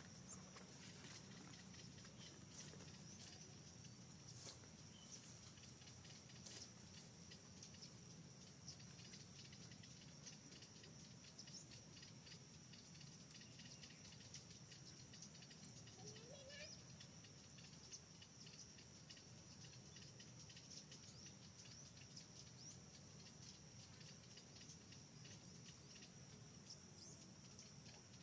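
Faint, steady, high-pitched drone of insects such as crickets or cicadas in the forest, with scattered faint ticks and rustles.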